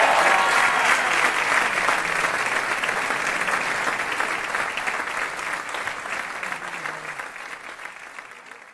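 Audience applauding, a dense patter of clapping that fades out gradually to silence at the end.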